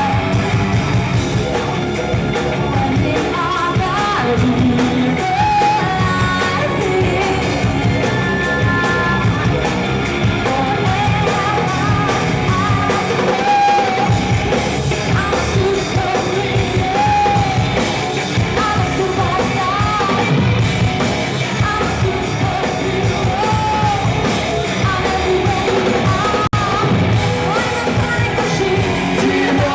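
Loud rock music from a band with a singer, playing without a break.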